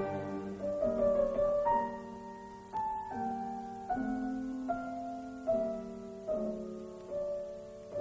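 Slow piano music: notes and chords struck about once a second, each left to ring and fade before the next.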